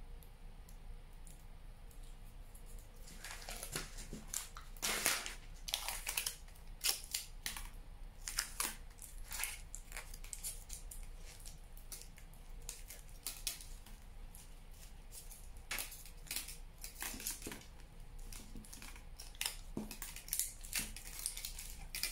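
Aluminium foil crinkling in irregular crackles as it is wrapped and pressed around the torso of a wire armature, starting about three seconds in.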